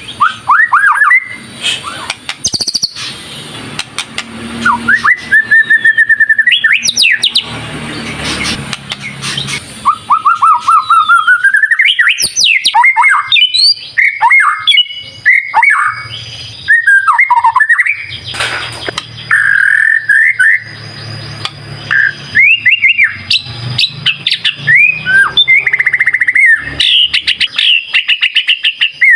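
White-rumped shama (murai batu) singing a loud, fast, varied song of rising and falling whistles, rapid trills and sharp clicks, with hardly a pause. It is the agitated, competitive song that bird keepers use to provoke other birds into singing.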